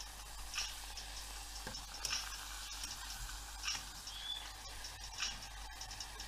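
Khvorost dough deep-frying in hot oil in a pot. It gives a steady high sizzle with fine crackling and four louder spits about a second and a half apart.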